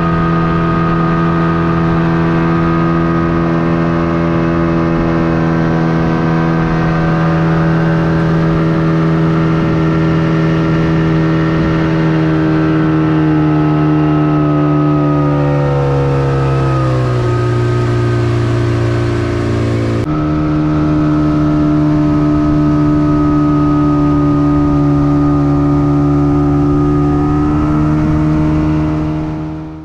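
Boat engine running steadily as the boat travels under way. About halfway through, its note falls as it slows, then jumps back up to the higher steady pitch about two-thirds of the way in.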